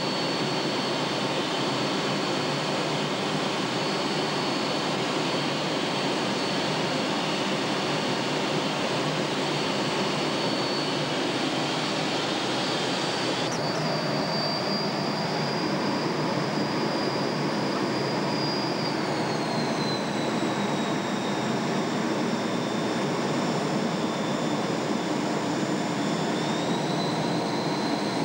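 Jet cockpit noise: a steady roar of engine and airflow with a high whine riding on top, picked up by a camcorder inside the canopy. A brief click comes about 13 seconds in; the whine then drops in pitch about 19 seconds in and rises again near the end.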